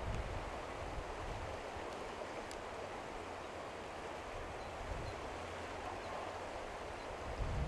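Steady outdoor ambience: a low wind rumble on the microphone over an even hiss, with one faint tick about two and a half seconds in.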